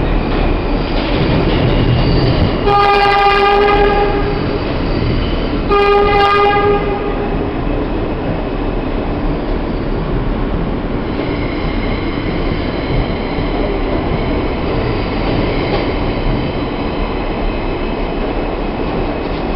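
New York City subway E train running through a tunnel with a steady rumble. A train horn sounds twice: a longer blast about three seconds in, then a shorter one a few seconds later. A thin high whine rises over the running noise about halfway through.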